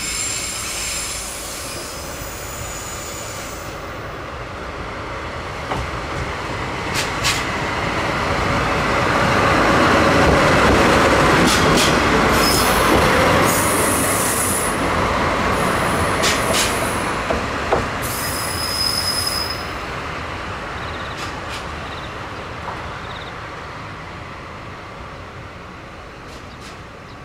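A DD51 diesel-hydraulic locomotive running light, growing louder as it passes close by and then fading as it draws away. Its engines run under the rumble of the wheels on the rails, with a few sharp clicks over rail joints and high-pitched squeals from the running gear as it passes.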